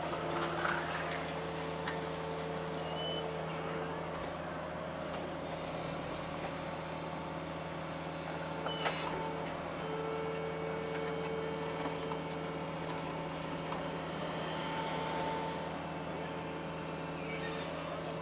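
John Deere 75 excavator's diesel engine running steadily, with a higher tone that comes and goes and a sharp click about nine seconds in.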